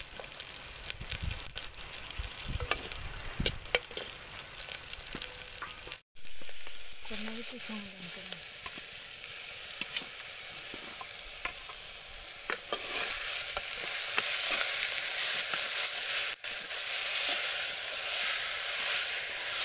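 Onions and spices sizzling in hot oil in a clay pot, with the clicks and scrapes of a steel spoon against the pot. After a brief gap, shredded green jackfruit is tipped in and stirred, and the sizzle grows louder and denser about two-thirds of the way in.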